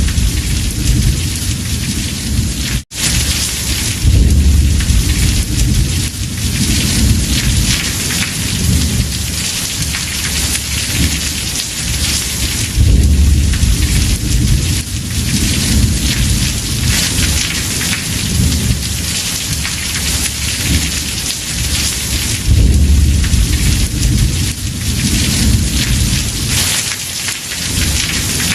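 Heavy rain drumming on a house roof, with thunder rolling in low rumbles that swell and fade several times. The sound cuts out for an instant about three seconds in.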